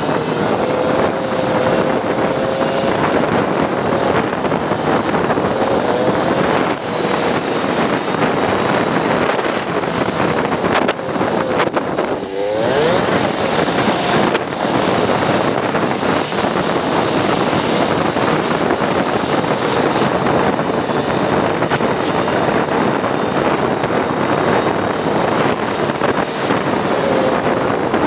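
Motorcycle engine running steadily under way, mixed with wind noise on the microphone. The engine note dips and climbs again briefly about halfway through.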